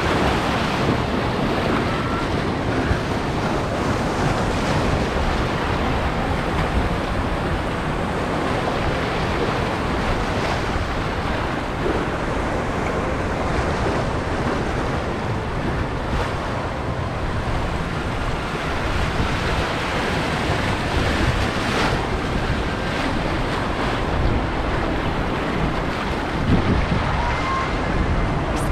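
Steady rushing, churning water of a river rapids ride, heard from aboard the raft, with wind buffeting the microphone.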